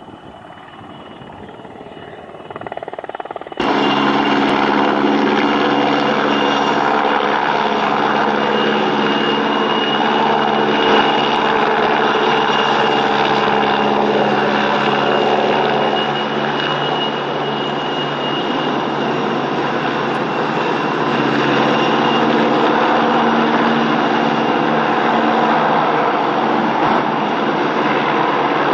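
PZL W-3 Sokół twin-turbine rescue helicopter flying and hovering close by: steady rotor and engine noise with a high turbine whine over it. It is fainter at first, then jumps suddenly much louder about three and a half seconds in.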